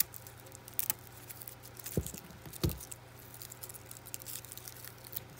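Metal snips cutting a dried, carded brown trout gill: a few sharp clicks as the blades close. Between the cuts comes a light crackling as the stiff, dry gill is bent and handled.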